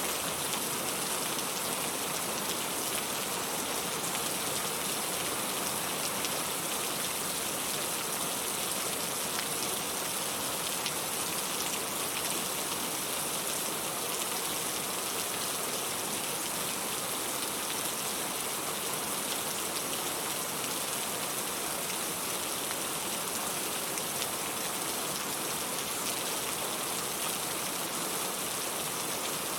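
Steady rain falling, a constant hiss of many drops with occasional closer drop ticks.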